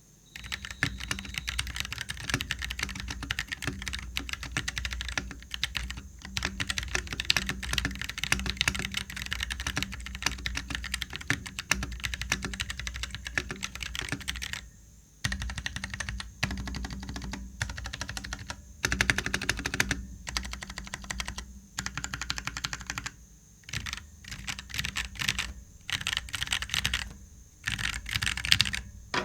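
Typing on a KLIM Shift mechanical keyboard with brown switches. For about the first fifteen seconds the keystrokes come fast and continuous, then in shorter runs with brief pauses between them.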